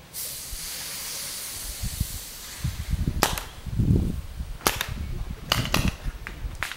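Paintball markers firing out on the field: sharp, dry pops in quick pairs and triples, about nine in all, starting about three seconds in. A steady hiss fills the first two seconds, and a low thud comes around four seconds.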